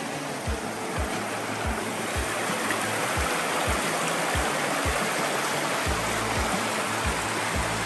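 Steady rush of running water, like a mountain stream, under background music with a low beat just under twice a second.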